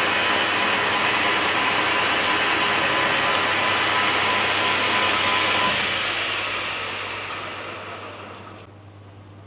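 Workshop lathe running steadily. About six seconds in it is switched off, and its sound fades away over about three seconds as it spins down, leaving a low hum.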